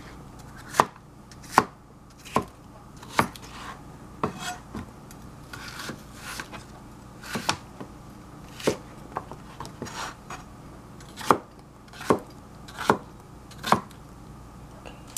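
Chef's knife chopping peeled cucumber into chunks on a plastic cutting board: a string of sharp knocks of the blade on the board, roughly one a second, some firmer and some softer.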